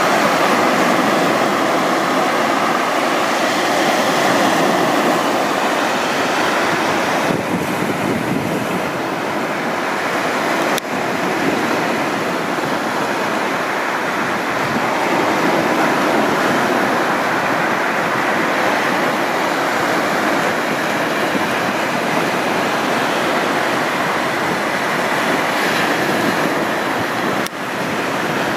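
Sea surf breaking and washing up a sandy beach on a choppy sea, a steady rushing wash, with wind.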